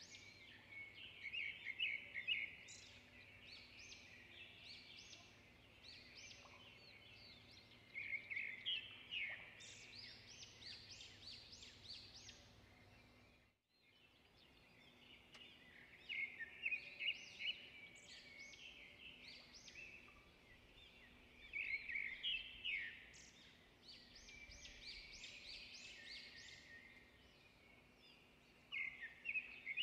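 Small birds chirping and twittering in faint, recurring bursts of quick high notes, briefly cutting out about halfway through.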